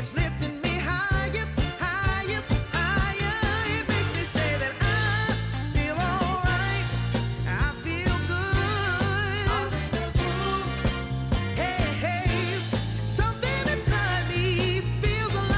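Background pop/soul song with a female-style sung vocal over a steady bass and drum beat.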